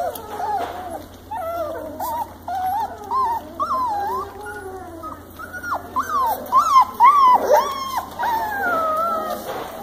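Young German shorthaired pointer puppies whining and squealing: many short, overlapping cries that rise and fall in pitch, busiest and loudest about six to eight seconds in.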